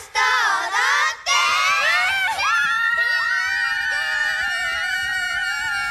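A group of young women shrieking and squealing in excitement: short high cries in the first second, then several overlapping long, high screams held together.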